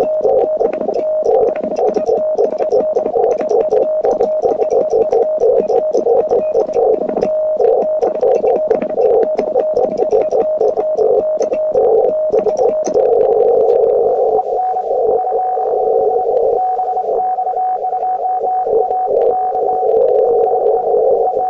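Morse code sent on a Vibroplex Lightning Bug semi-automatic (bug) key: the transceiver's CW sidetone beeps in quick dots and dashes over the key's light metallic clicking. About 13 seconds in the sending stops and the receiver's hiss through its narrow CW filter takes over, with a thin steady tone in it.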